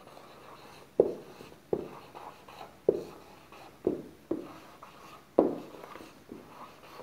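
Marker pen writing on a whiteboard: a string of short, irregular taps and strokes as letters and numbers are written.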